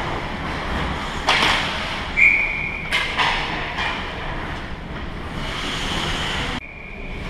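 Ice hockey play around the net: skates scraping the ice and sticks and puck clattering, with a couple of sharp knocks, and a short referee's whistle blast about two seconds in that stops play.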